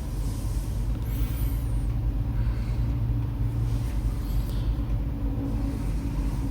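Steady low rumble with a faint constant hum above it, unchanging throughout.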